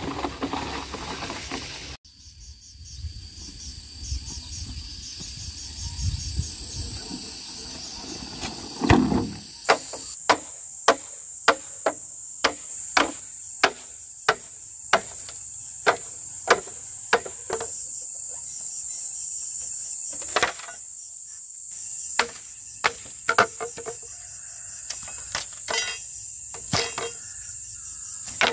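Insects shrilling in a steady high drone, with repeated chopping strikes, about two a second at first and then slower and irregular.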